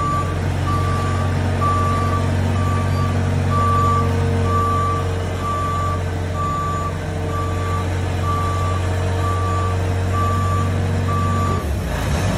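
Hoist FR-series forklift's engine running steadily while its backup alarm beeps at about one beep a second; the beeping stops near the end.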